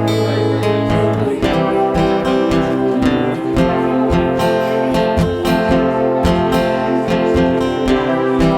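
Acoustic guitar strumming a steady chord pattern, with a chord change about a second in.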